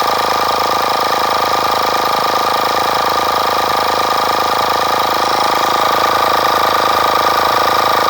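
WindGallop 150 psi portable car air compressor running steadily while inflating a car tyre, a loud, unchanging whine with a constant pitch.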